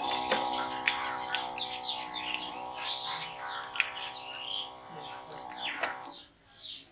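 Sewing-machine motor driving a homemade water pump, running with a steady humming whine from the moment it is switched on, with water splashing from the outlet pipe. About six seconds in it is unplugged, and the whine drops in pitch and dies away as the motor spins down.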